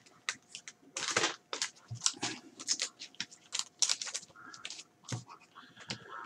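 Trading card packs and cards being handled: a foil pack wrapper crinkling and cards tapping and sliding, in a quick, uneven run of short rustles and clicks.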